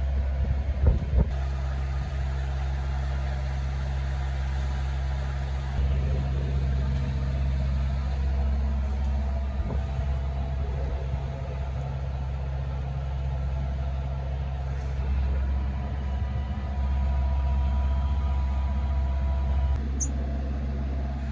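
Sailboat's inboard engine running steadily under way: a constant low drone.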